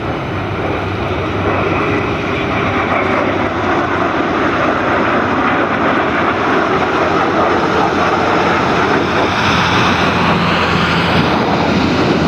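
Dassault-Dornier Alpha Jets flying past, the steady rush of their Larzac turbofan engines growing slowly louder. A higher whine comes in near the end.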